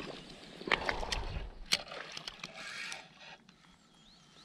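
A small perch splashing at the water's surface as it is reeled in and lifted out on a spinning rod, with a few sharp clicks in the first two seconds.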